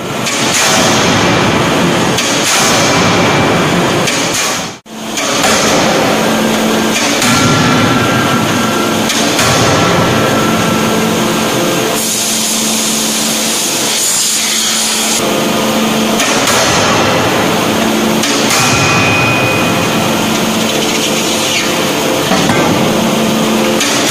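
Hydraulic closed-die forging hammer working hot steel: loud, continuous forge-shop machine noise that drops out briefly about five seconds in.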